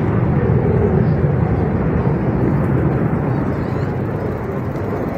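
Airplane passing overhead: a loud, even engine rumble that swells about a second in and slowly eases off.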